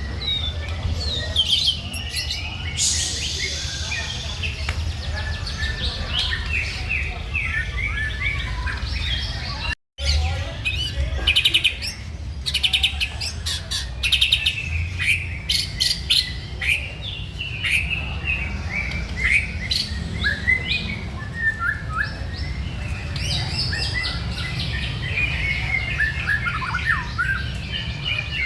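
White-rumped shama (murai batu) singing a rapid, varied song of whistled phrases, quick trills and sharp clicking notes, over a steady low hum. The sound briefly cuts out about ten seconds in.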